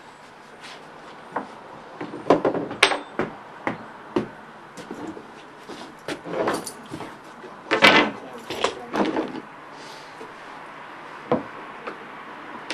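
Irregular wooden knocks and clatter of tongue-and-groove porch floorboards being handled and fitted, some hits louder and sharper than others.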